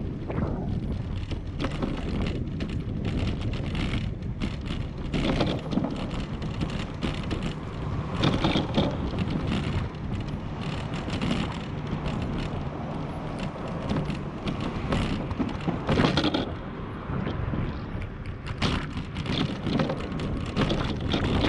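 Bicycle riding over a brick-paved path, heard from a camera mounted on the bike: a steady rumble of tyres on the pavers with wind on the microphone, and frequent small clicks and knocks as the bike jolts over the bricks.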